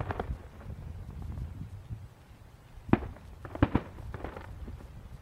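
Distant aerial fireworks shells bursting: a few quick pops at the start over a low rumble, a sharp bang about three seconds in, then two more bangs close together and a short crackle.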